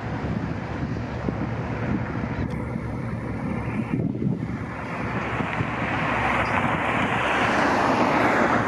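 Outdoor wind and traffic noise: a steady low rumble, with a rushing sound that swells and grows louder over the last few seconds.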